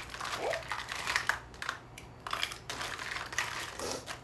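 Irregular rustling and scraping close to the microphone: a string of short noisy crackles from clothing, hair or things being handled right at the phone.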